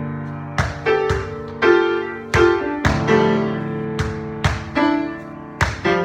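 Piano playing an instrumental passage of struck chords and notes, each ringing and fading before the next is played.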